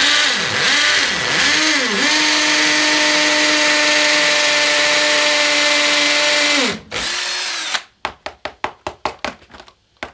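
Ryobi cordless drill on hammer action boring an 8 mm masonry bit into solid brick: the motor speed rises and falls for about two seconds as the hole is started, then runs steady, winds down about seven seconds in, runs briefly once more and stops. Near the end comes a quick run of light knocks.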